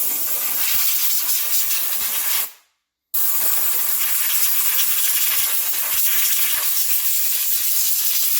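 Compressed-air blow gun blowing brake dust out of a rear wheel hub and brake assembly: a loud, even hiss that cuts off about two and a half seconds in, then starts again half a second later.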